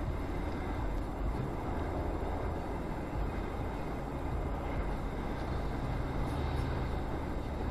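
Steady road and engine rumble heard inside a moving car's cabin, with a constant hiss over it.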